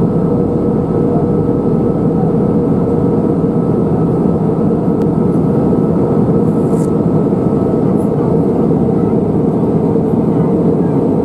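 Steady cabin noise inside an Airbus A320-214 in flight at altitude: the rush of airflow and the drone of its CFM56-5B engines heard through the fuselage, with a steady hum running under it.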